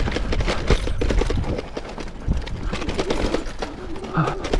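Mountain bike clattering over a rough downhill trail at speed: a quick, irregular run of knocks and rattles from the bike over a steady low rumble of wind and tyre noise.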